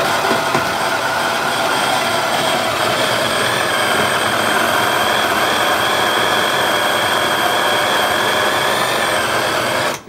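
Electric hand-blender mini chopper running continuously, its motor whining steadily as the blades grind raw fish chunks into paste. It cuts off abruptly near the end.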